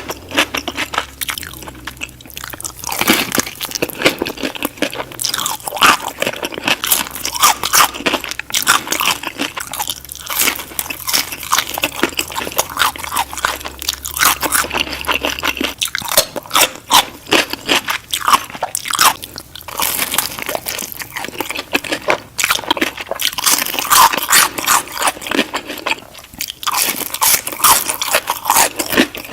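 Close-miked eating: crispy fried chicken bitten and chewed with loud, repeated crunching, broken by a few short pauses between mouthfuls.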